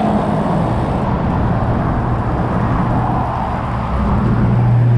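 Road traffic heard from a moving bicycle on a roadside path: a steady rush of vehicles and moving air, with a low engine hum that grows louder near the end.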